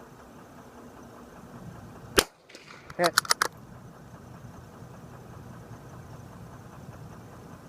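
A single shot from a Savage Mark II .22 rimfire rifle about two seconds in. A few sharp clicks follow about a second later.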